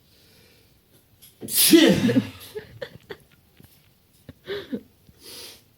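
A person sneezing hard once, about a second and a half in, set off by Kalanchoe juice dropped into the nose. A few shorter, fainter sounds follow.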